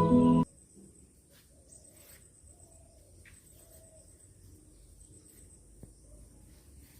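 Background music cuts off about half a second in, leaving faint outdoor ambience with short animal calls repeating roughly once a second and light scattered ticks.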